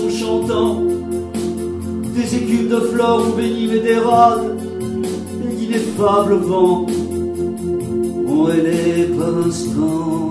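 A man singing over sustained electronic keyboard chords.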